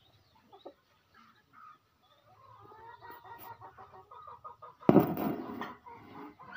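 Chickens clucking in a run of short calls that grow louder after about two seconds, with a sudden loud burst of noise about five seconds in.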